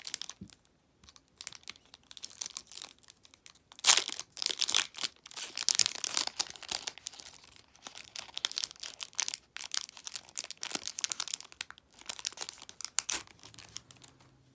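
Foil Pokémon booster pack wrapper crinkling and being torn open, with the loudest sharp tear about four seconds in, amid irregular crackling as the pack is handled.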